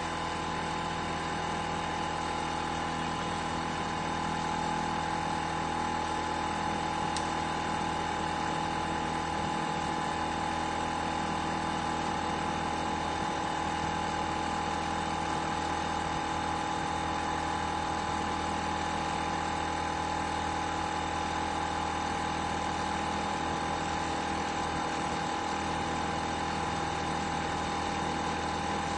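Metabo HPT cordless air compressor running steadily with an even whine, the motor and pump pressurising the tank; this replacement unit runs without the problem that the earlier, defective one had.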